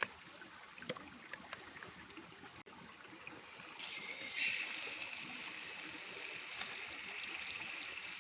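Stream water trickling and gurgling, with a couple of light knocks near the start. About four seconds in, a louder, steady hiss takes over.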